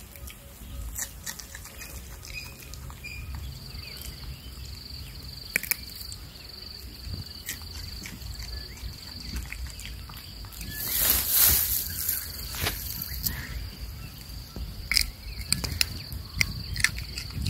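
A steady high insect trill starts about three seconds in and carries on, with scattered small clicks throughout. About eleven seconds in, a loud rush of noise lasting about two seconds is the loudest sound.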